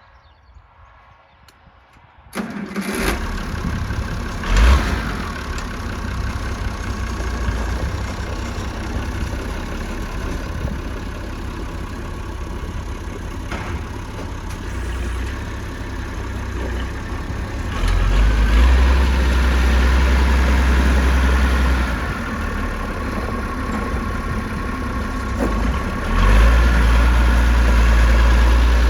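Massey Ferguson 1100 tractor engine cranking and catching about two seconds in, then running steadily. It steps up louder for a few seconds past the middle and again near the end.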